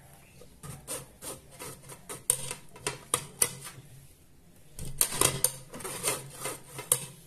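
A metal spoon scraping and pressing red beet pulp through a stainless-steel mesh sieve: a run of uneven rasping strokes, with the loudest bunch about five seconds in.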